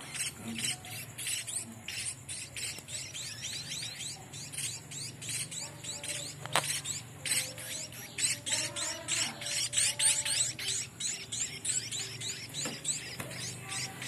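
Munia fledglings giving rapid, high-pitched begging chirps, several a second without pause: hungry chicks calling to be hand-fed. A single sharp click about six and a half seconds in.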